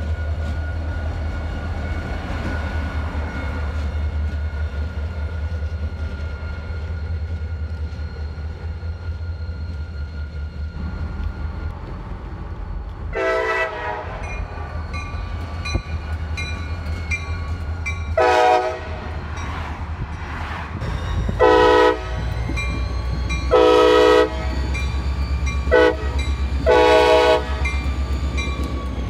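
Diesel locomotive running with a steady low engine rumble. From about halfway on, its horn sounds six blasts, the last four in the long, long, short, long pattern for a grade crossing.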